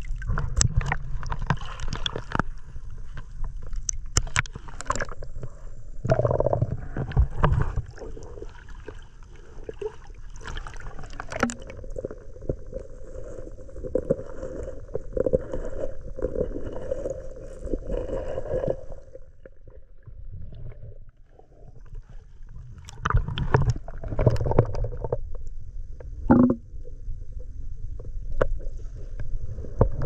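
Water sloshing and gurgling around a camera held just at the surface in shallow seawater, heard partly underwater as a muffled rumble. It comes in irregular surges with the camera's movement.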